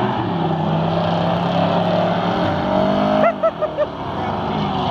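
V8 muscle car doing a burnout, engine held at high revs with the rear tyres spinning on the pavement; the engine note climbs, then stutters in four or five quick cuts a little over three seconds in before settling back to a steady run.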